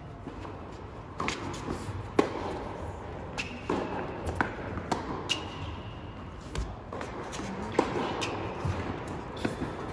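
Tennis balls struck by rackets and bouncing on a hard indoor court during a rally: a string of sharp pops at irregular intervals, echoing in a large hall.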